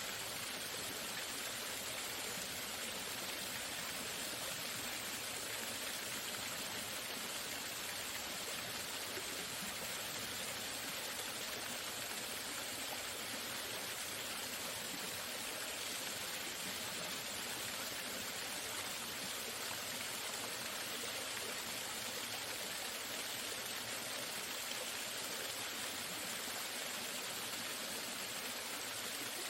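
A waterfall: water falling and splashing in a steady, unbroken rush.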